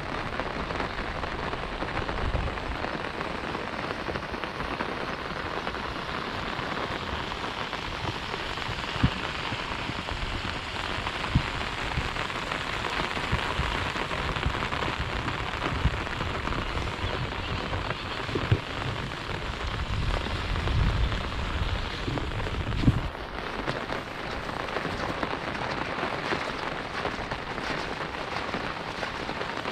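Heavy monsoon rain falling steadily, with a few sharp louder taps now and then.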